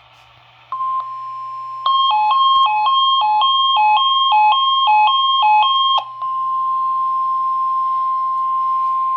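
NOAA Weather Radio warning alarm tone, a steady high tone near 1 kHz that starts under a second in and signals that a warning broadcast follows. From about two to six seconds in, a quick two-note alternating beep sounds over it, then the steady tone carries on alone. A faint low electrical hum lies underneath.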